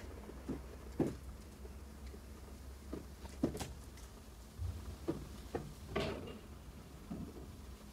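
Faint, scattered taps and soft knocks of a small dog's paws scampering and skidding on a hard floor during play, with a sharper knock about six seconds in.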